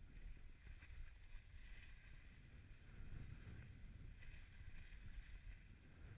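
Skis sliding over packed snow, a faint hiss that swells twice, with a low wind rumble underneath.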